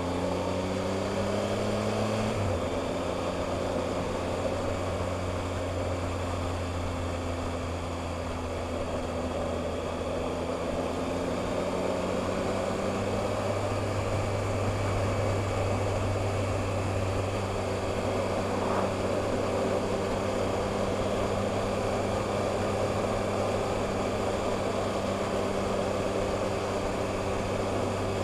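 Motorcycle engine under way with wind noise: the engine note rises under acceleration, drops sharply with an upshift about two seconds in, then holds a steady cruising note.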